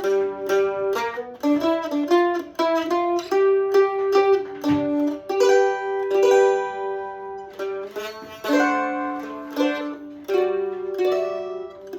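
Loar LM-310F F-style mandolin playing a blues in G over a I–IV–V progression: picked notes and pairs of notes, some held for a second or two.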